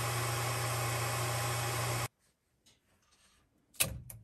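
Steady hum and hiss of the QIDI X-CF Pro 3D printer's fans running, cutting off suddenly about two seconds in. Near the end comes a sharp knock and then a lighter click as the printed carbon-fibre nylon part is gripped and lifted from the textured print bed.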